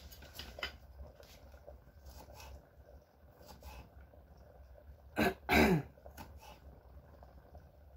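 A woman clears her throat twice in quick succession about five seconds in. Faint taps of a small knife on a wooden cutting board run underneath as she cuts garlic.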